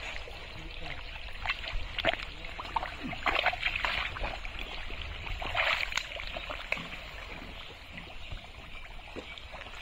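Thick, watery mud squelching and sloshing in irregular short splashes as a person wades through it and gropes in it with his hands.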